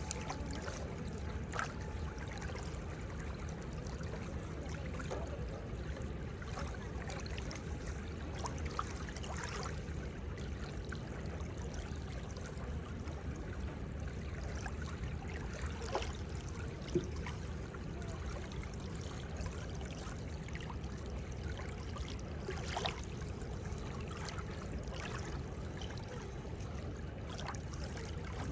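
Seawater washing and trickling gently at the shore: a steady wash of water with scattered small sharp splashes and ticks, the sharpest about 17 seconds in.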